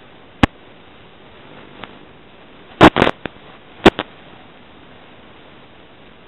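Steady static hiss from an analog FPV video link with sharp crackling pops: one about half a second in, a quick cluster around three seconds in and two more just before four seconds, the kind of clicks left by radio interference on the link.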